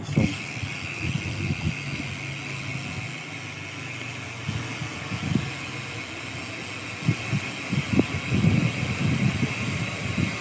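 Motor vehicle running on the road, with a steady hiss and uneven low rumbling that grows heavier in the last few seconds.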